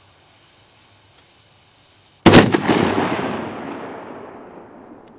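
A Zena Trueno No. 5 P1 firecracker, 2 g of flash powder, goes off with a single sharp bang about two seconds in. A long echo follows and dies away over about three seconds.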